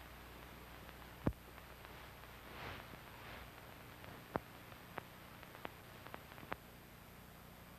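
Faint steady hiss and low hum of an old recording, with a sharp click about a second in and several smaller clicks and pops between four and seven seconds, plus two soft swells of noise in the middle.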